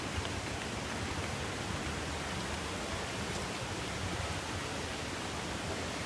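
Steady rushing of water, an even noise with no breaks.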